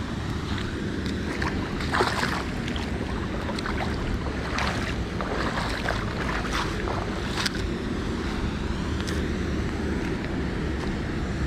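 Footsteps in flip-flops splashing through a shallow stony river, the splashes thickest between about two and seven and a half seconds in, then a few quieter steps onto gravel, over a steady low rush of moving water.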